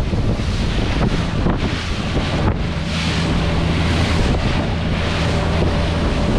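Wind buffeting the microphone and spray hissing along the hull of a Stabicraft 2050 Supercab aluminium boat running through choppy water. The outboard motor hums steadily underneath, clearer from about halfway through.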